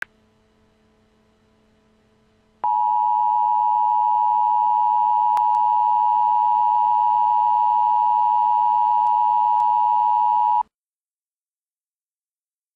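Emergency Alert System attention signal: the steady two-tone alarm (853 and 960 Hz together), held for about eight seconds. It starts a couple of seconds in and cuts off suddenly.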